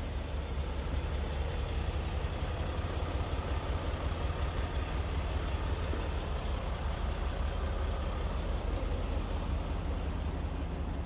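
Range Rover Sport SDV6's 3.0-litre V6 diesel engine idling, a steady low rumble.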